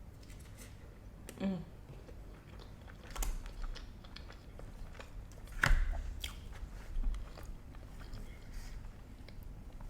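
Close-miked eating: chewing and biting into crunchy food, with scattered crunches, the loudest about two-thirds of the way through. A short hum of a voice comes about a second and a half in.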